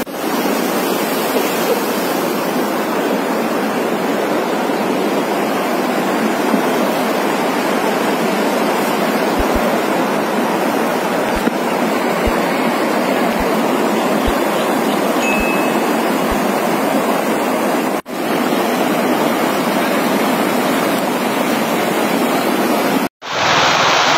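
Muddy floodwater rushing down a street as a steady, loud torrent. The sound drops out briefly twice near the end.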